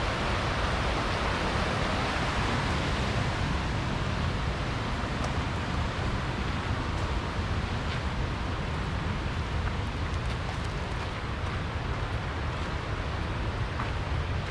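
Steady rush of a shallow, rocky river running over rapids, over a low rumble, easing slightly in the second half.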